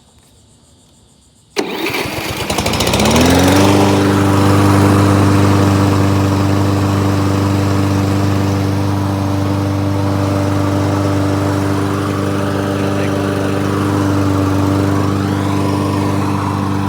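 Briggs and Stratton lawnmower engine starting suddenly about a second and a half in, speeding up over the next two seconds, then running steadily at speed.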